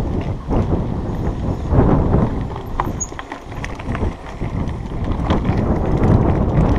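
Mountain bike rattling and clattering as it rides down a rough dirt and stone trail, with irregular knocks from the bumps over a low rumble of tyre noise.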